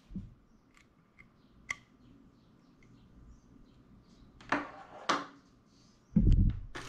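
Desk handling noises: a few light clicks and two short rustling scrapes as a Sigma lens dock and its USB cable are handled, then a louder dull knock on the desk near the end.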